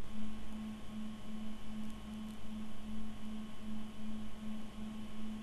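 A steady low electrical hum with a faint higher tone over light hiss: background hum from the recording setup during a pause in the narration.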